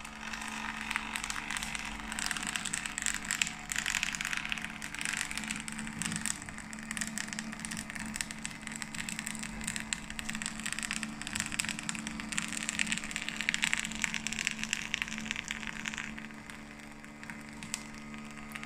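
Brother PocketJet PJ-622 direct thermal printer printing a sheet: its feed motor runs with a steady hum while the paper rustles through the rollers past the print head. The rustle thins out near the end.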